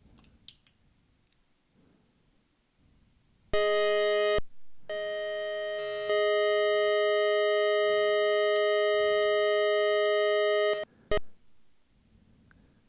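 Nunomo Qun mk2 synthesizer sounding held notes from a patch with a square-wave oscillator and a pulse-width-modulated oscillator. The tone is steady and rich in overtones: a short note of about a second, then a long note of about six seconds that cuts off suddenly, then a brief blip.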